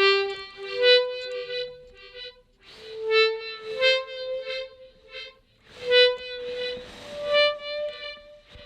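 Melodica playing a slow phrase of sustained reedy notes, some repeating, fed through an Empress Effects Echosystem delay pedal for a dub sound.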